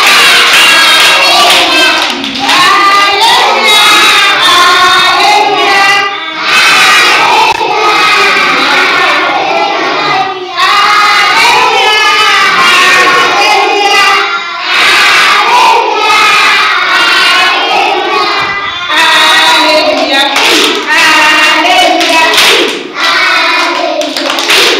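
A group of young children singing together loudly and clapping along, in phrases of about four seconds with short breaks between them.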